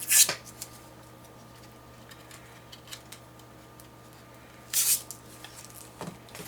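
Hands rummaging among small parts: two short rustles, one at the start and one about five seconds in, with faint clicks between.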